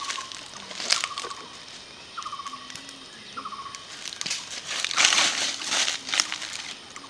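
Dry fallen leaves crunching and rustling under footsteps, loudest about a second in and again around five to six seconds in. A short, rapid trilled chirp repeats several times in the background during the first half.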